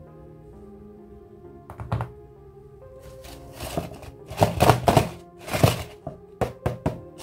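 Small cardboard toy box being handled and opened: scraping and rustling of card with several knocks and clicks, loudest in the middle. Soft background music plays underneath.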